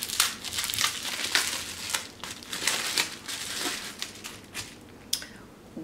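Packaging crinkling and rustling in the hands as a small bottle of anointing oil is unwrapped: a dense run of crackles that thins out and quietens near the end.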